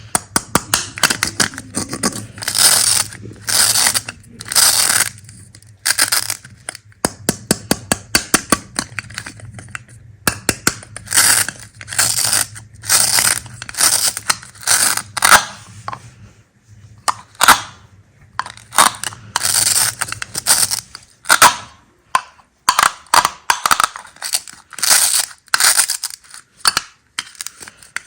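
Hard candies being cut and crushed: a series of short, crisp crunches, with a quick run of dense little clicks from the candies about a third of the way in.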